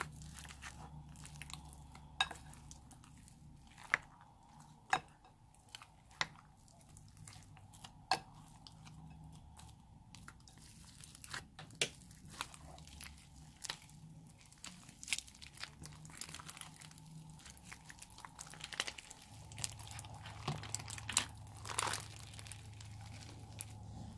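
Slime being mixed and squeezed by hand with foam clay, clay balls and small purple crunchy bits: scattered sharp crackles and pops, growing denser and busier in the second half.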